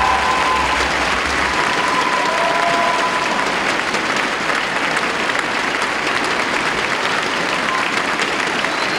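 Audience applauding steadily and densely for a team dance routine that has just ended. The last held notes and bass of the music die away in the first couple of seconds.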